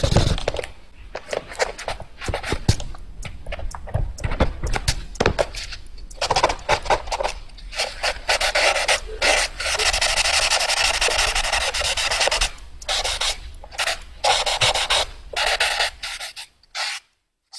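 Rapid drawing on paper: quick scratchy strokes, one after another, with short pauses and a few longer continuous scribbles, stopping near the end.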